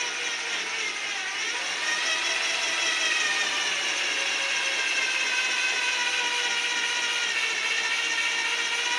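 Motor whine of a power tool spinning a wooden broom handle while a utility knife is held against it to cut a groove. The pitch rises a little about a second in, then runs steady.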